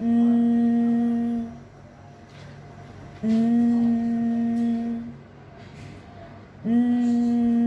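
A woman's voice humming the nasal /ŋ/ (NG) consonant, held out at a steady pitch three times, each for about a second and a half, with short pauses between.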